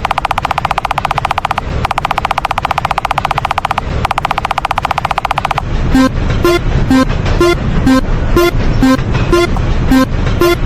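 A rapid rattling buzz in three stretches, then from about six seconds in a Japanese railroad crossing warning bell ringing about two strikes a second, alternating between two pitches, over a steady low rumble.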